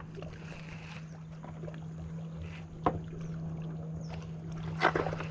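Steady low hum in a fishing boat, broken by two sharp knocks about three and five seconds in, the second the louder, as tackle is handled during a hook change.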